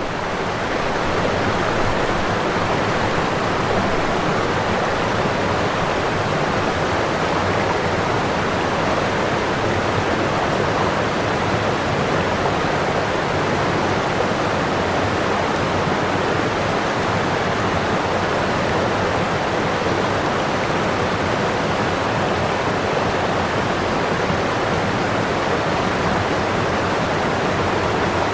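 Waterfall: a steady rush of falling water that fades up out of silence and reaches full strength about a second in.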